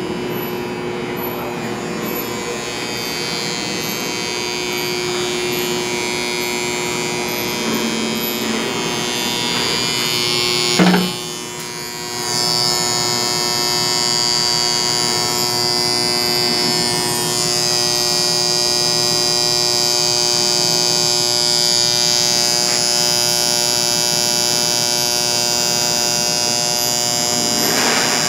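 Electrical contactors buzzing loudly with a steady, many-toned electric hum. A sharp click comes about eleven seconds in; the buzz drops for a moment, then returns louder with a high whine on top.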